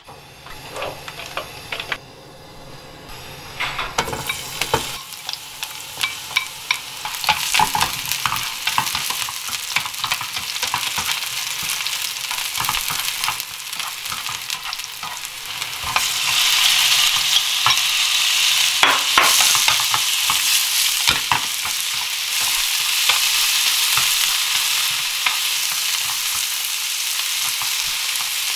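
Oil sizzling in a non-stick frying pan as sliced spring onion and crushed garlic, then slices of pork, are stir-fried, with a wooden utensil scraping and tapping the pan. The sizzle starts quiet and gets louder about halfway through.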